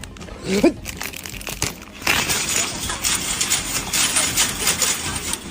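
A short pitched cry about half a second in, then about three and a half seconds of dense crinkling and rustling.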